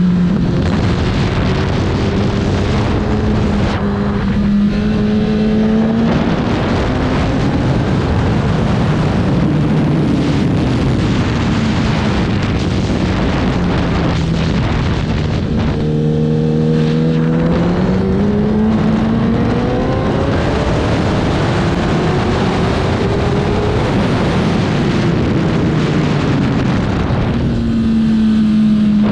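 Racing motorcycle engine at race pace, its pitch repeatedly climbing and falling as the bike accelerates and slows. There is a marked drop about sixteen seconds in, followed by a long climb.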